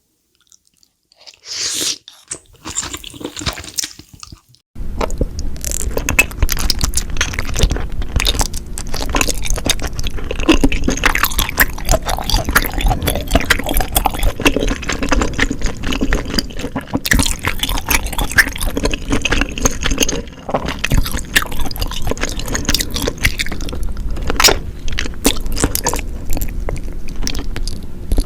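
Close-miked chewing of chewy tteokbokki rice cakes in sauce: wet, squishy mouth sounds with sticky smacks and clicks. After a sparse start, a denser, louder stretch of chewing begins suddenly about five seconds in, over a steady low hum.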